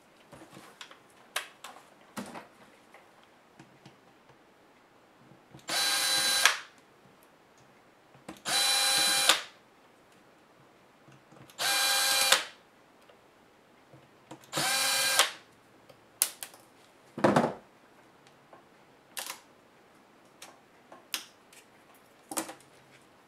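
Small cordless electric screwdriver whining in four short bursts of about a second each, a few seconds apart, as it backs out screws from a laptop's LCD panel. Light clicks and knocks of handling come between the bursts.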